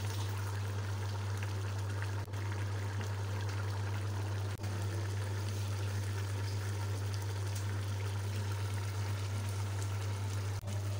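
Rice boiling hard in chicken stock (yakhni) in a metal pot on full flame: a steady bubbling and simmering wash, over a strong steady low hum. The sound breaks off briefly three times.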